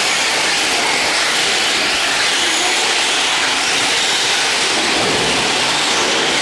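Radio-controlled race trucks running, a loud, steady mechanical noise with no breaks.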